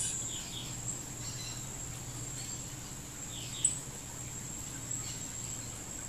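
A steady high-pitched insect trill with a few short, descending bird chirps over it and one brief tick about three and a half seconds in.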